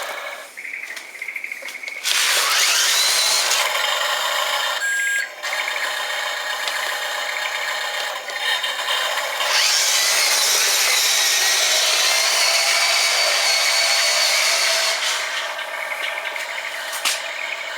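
Small electric drive motors and gears of a model dump truck whirring as it drives with its load of sand. The whine rises as it gets going about two seconds in, grows louder about ten seconds in, and eases off near the end.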